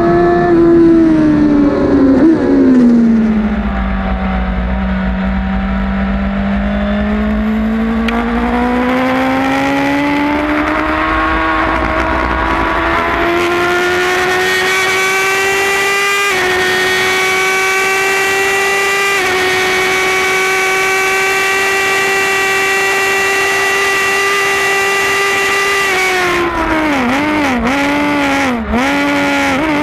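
2008 Suzuki GSX-R 1000 inline-four engine at racing speed: its pitch falls early on, then climbs slowly. It holds high and nearly steady for about twelve seconds, then dips and recovers several times near the end.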